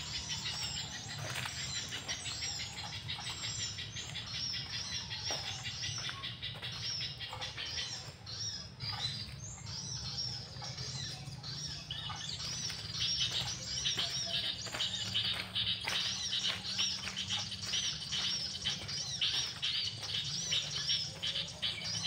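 Recorded bird song played from an MP3 player as a trapping lure: dense, fast chirps and trills that grow louder and busier about halfway through, over a steady low hum.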